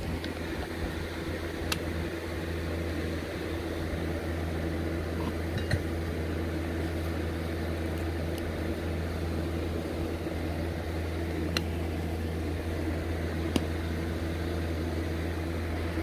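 A steady low mechanical hum from a running machine. A few light clicks and taps sound as small objects are handled.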